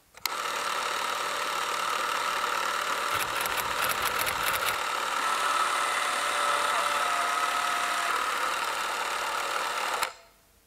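A steady, machine-like running noise, as of an idling engine, that starts abruptly and cuts off suddenly near the end, with a burst of crackling clicks in the middle.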